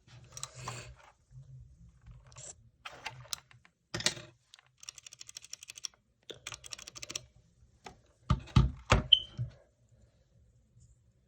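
Typing on a TMKB T68SE mechanical keyboard: irregular clusters of key clacks, a fast even run of keystrokes midway, and a few heavier, deeper knocks later on.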